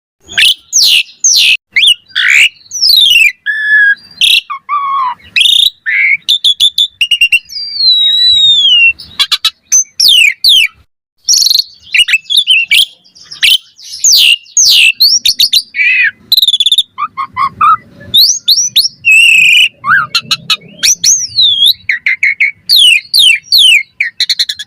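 Asian pied starling singing a fast, varied song of loud whistles that slide up and down, broken by runs of rapid clicking chatter and short pauses.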